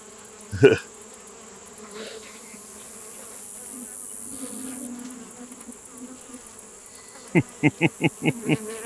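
Honeybees buzzing around an opened hive, a steady hum of agitated bees. A single knock comes just under a second in, and a quick run of six sharp knocks near the end.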